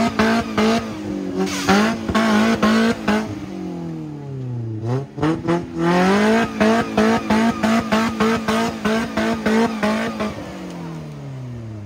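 Off-road 4x4 engine revving hard, held high in choppy surges, dropping briefly about four seconds in, climbing again, then falling away near the end.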